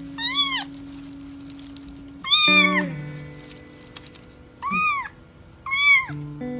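Kitten meowing four times, each meow a short high call that rises and falls in pitch, over background music with steady held notes.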